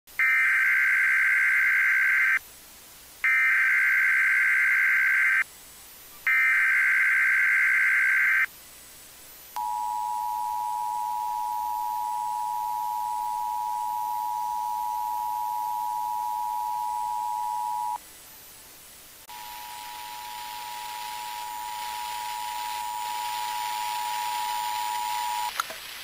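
Emergency Alert System alert tones: three harsh data bursts of the SAME header, each about two seconds long, then the two-tone attention signal (853 and 960 Hz) held steady for about eight seconds. After a short break the attention signal sounds again for about six seconds over a hiss that grows louder.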